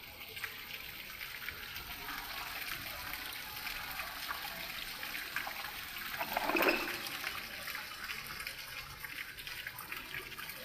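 Water from an ornamental courtyard pond or water feature running as a steady splashing hiss, with one short vocal sound about six and a half seconds in.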